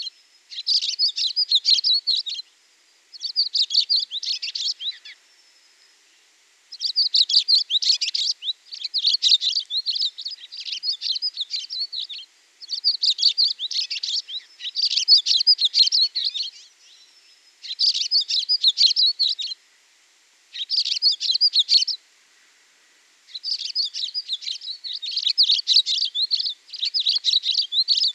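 Songbird song: phrases of rapid, high chirps, each lasting one to two seconds, repeated with short pauses between them.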